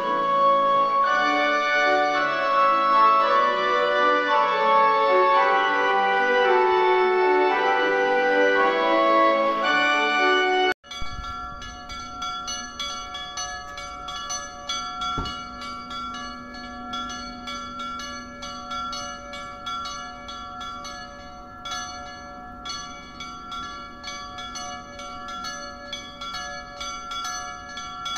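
Organ music for about the first eleven seconds, then an abrupt cut to the chapel's two bells, cast by G. B. De Poli of Udine, ringing together, swung by hand in the Friulian full-swing style (slancio friulano), their strikes overlapping in a steady, repeating pattern.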